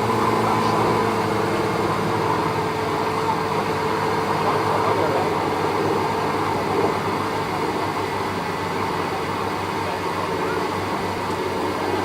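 A Lamborghini engine idling steadily, with background voices.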